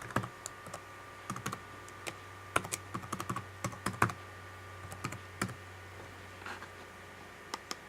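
Typing on an Acer netbook's keyboard, entering a Microsoft account name: a quick, uneven run of about twenty key clicks that stops near the end.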